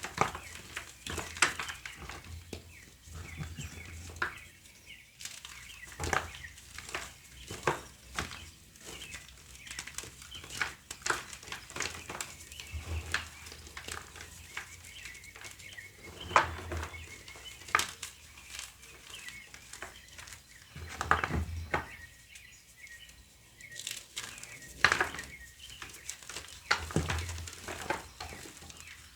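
A dry, crumbly block being crushed and broken up by hand: a dense run of irregular sharp crunches and crackles, with a soft low thump now and then. Faint bird chirps can be heard behind it.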